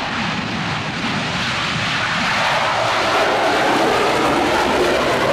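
Panavia Tornado's two Turbo-Union RB199 turbofans running in full afterburner during the take-off run and lift-off, a steady jet noise that gets louder about halfway through as the aircraft comes past.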